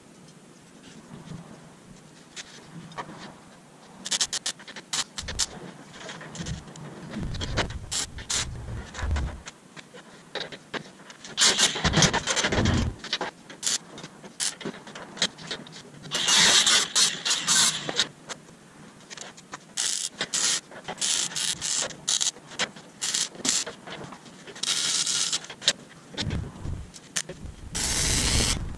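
Hands-on metal shop work: repeated clanks, knocks and scrapes of metal parts being handled, broken by several hissing bursts a second or two long.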